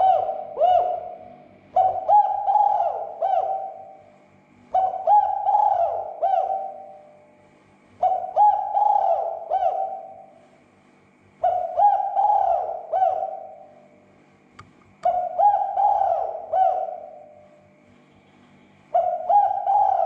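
Spotted dove (tekukur) cooing: the same short phrase of several hollow notes, repeated every three to four seconds.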